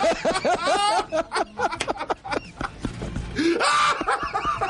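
Men's voices laughing and exclaiming, with a loud yell about three and a half seconds in.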